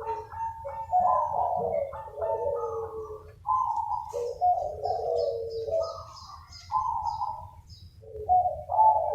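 Several zebra doves (perkutut) cooing their rolling, trilled song and answering one another in overlapping phrases, with a brief pause near the end. Faint high chirping from a small bird comes in midway.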